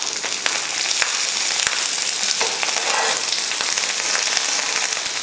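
Coconut oil sizzling steadily on low heat around banana-leaf-wrapped fish parcels as they are turned over in the pan. A few light clicks of the knife and slotted spoon against the pan come in the first couple of seconds.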